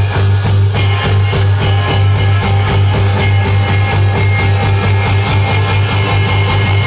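Loud live band music: guitars and drums over a steady deep bass drone, with fast, close-set drum strokes throughout.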